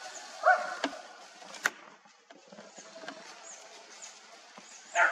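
Quiet winter forest ambience: a short pitched call about half a second in, two sharp clicks soon after, then faint high chirps repeating through the second half.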